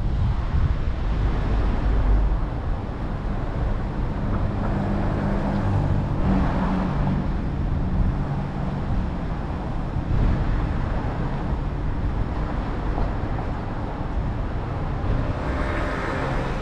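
Car traffic heard from a camera mounted on the outside of a car: low wind and road rumble as the car slows, easing a couple of seconds in, then a steady low engine hum while it waits in traffic. Near the end a higher-pitched droning sound comes in.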